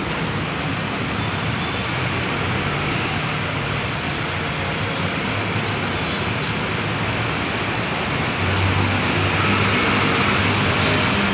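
Steady roar of street traffic, growing louder about eight and a half seconds in.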